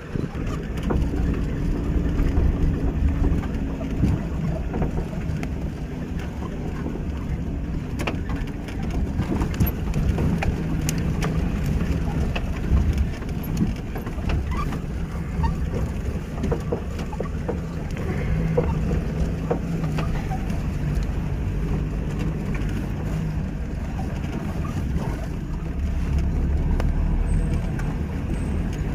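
Safari vehicle driving along a rough dirt forest track: steady engine and tyre rumble, with scattered knocks and rattles from the bumps.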